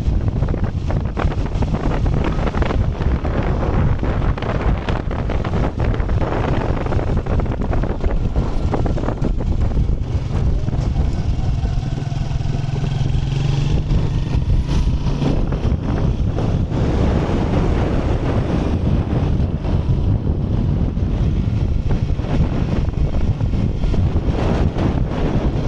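Honda CG125's single-cylinder four-stroke engine running under way, with heavy wind buffeting on the microphone. The engine note grows stronger and steadier for a few seconds around the middle.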